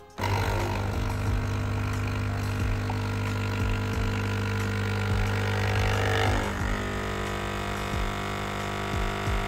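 Vibratory pump of a De'Longhi EC 152 espresso machine switching on and running with a steady, loud buzz, pushing water through the ground coffee in the portafilter at the start of an espresso shot, before the first drops reach the cup. The buzz starts abruptly and changes slightly about six and a half seconds in.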